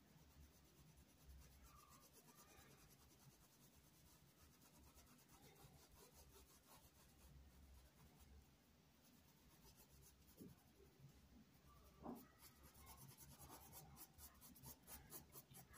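Faint paintbrush strokes rubbing on cotton fabric, soft and scratchy, with a run of quicker repeated strokes in the last few seconds.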